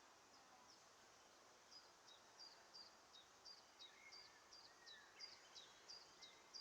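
Faint small bird calling: a run of short, high, falling chirps, repeated about three times a second from about two seconds in.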